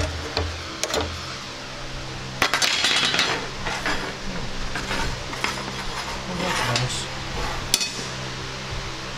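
Metallic clinks, clicks and rattles of a steel metal-cutting bandsaw blade being handled, the blade bent after jamming in the saw's guide bearings, with a longer rattle about two and a half seconds in and a sharp click near the end.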